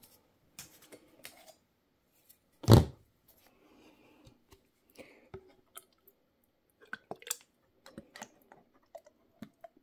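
Faint handling noises, scattered clicks, taps and light rustles, as a bottle of air compressor oil is handled, with one louder thump about three seconds in.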